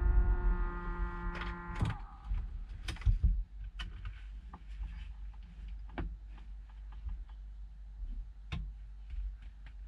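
A held musical chord ends about two seconds in. Sparse light clicks and knocks follow over a low steady rumble.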